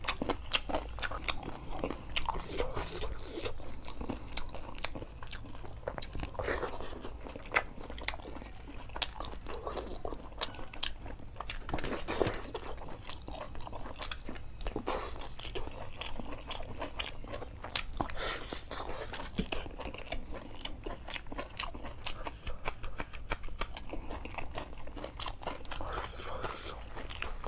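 Close-miked eating sounds: a person chewing chicken curry and puri, with constant wet mouth smacks and sharp clicks.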